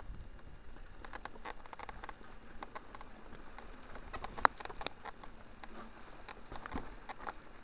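Mountain bike rattling over a rough, stony trail: a continual scatter of small clicks and knocks from the bike and its handlebar-mounted camera, with one sharp knock about four and a half seconds in, over a low rumble.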